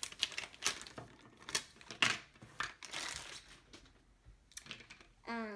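Clear plastic packaging bag crinkling as it is handled, with several sharp clicks and knocks of plastic toy pieces set down on a table.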